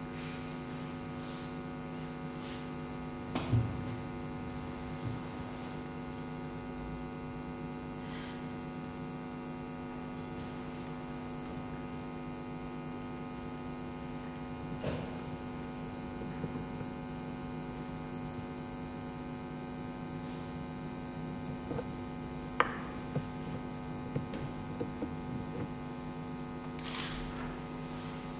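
Steady electrical hum with many evenly spaced overtones, unchanging throughout. A few short knocks stand out over it, the loudest about three and a half seconds in and another a little past twenty-two seconds.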